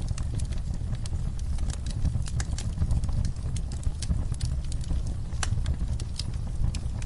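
Fire in a fireplace crackling, with frequent irregular sharp pops over a low steady rumble.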